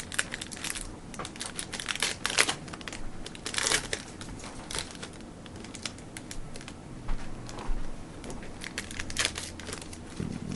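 Football trading cards and their pack wrapper being handled: irregular crinkling and crackling with short clicks, loudest in bunches about two and a half, three and a half, and nine seconds in.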